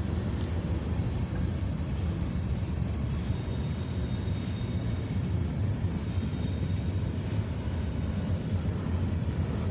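Freight cars of a long CSX freight train rolling past over a grade crossing: a steady low rumble of steel wheels on the rails, with a faint high squeal now and then.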